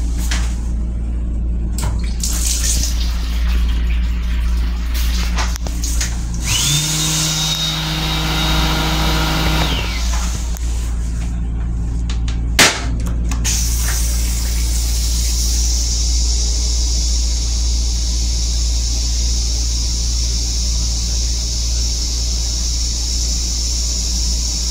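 M7 railcar toilet flush cycle over the low rumble of the moving car: a motor hums at a steady pitch for about three seconds, a sharp click follows a few seconds later, and then a steady hiss sets in and keeps going.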